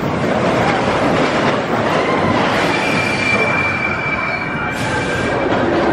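Expedition Everest roller coaster train running on its steel track: a steady rumble of wheels and rushing air, with a thin high wheel squeal starting about halfway through and lasting about two seconds.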